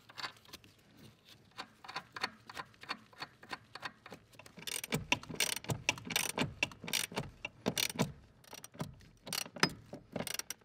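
Ratchet wrench clicking in quick runs as nuts are tightened onto the brake booster's mounting studs, with the clicks louder and more frequent from about halfway.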